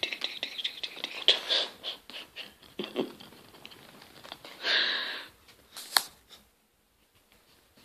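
Pet squirrel scrambling over a hand and the phone: rapid scratches and clicks of its claws with fabric rustling. A louder rustle comes about five seconds in, and a sharp tap follows about a second later.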